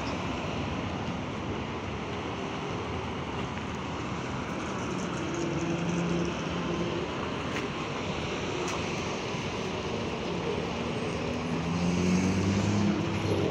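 Street traffic noise as a trolleybus draws up alongside. A low steady hum from the vehicle gets louder near the end.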